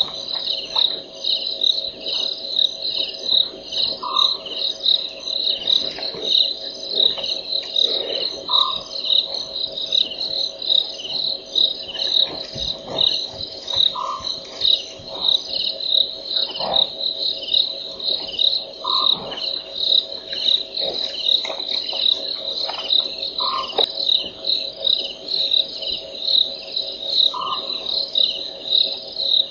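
Night chorus of insects, crickets, chirping in a high, steady, evenly pulsed rhythm, with a short lower call repeating about every four to five seconds.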